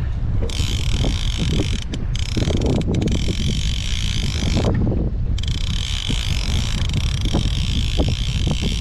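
Fishing reel being cranked against a heavy fish, its gears whirring steadily, with a short break about five seconds in before the cranking resumes. Wind buffets the microphone throughout.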